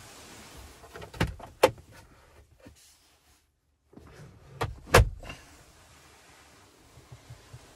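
Car doors on a 2020 Volvo XC60 T8 being worked, giving two pairs of sharp knocks: a click followed by a loud thump, twice.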